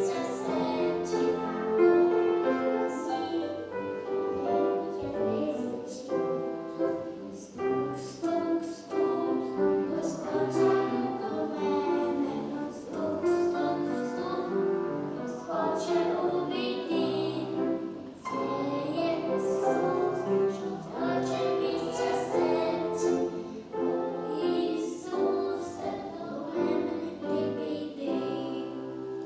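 A choir of voices singing a song with musical accompaniment.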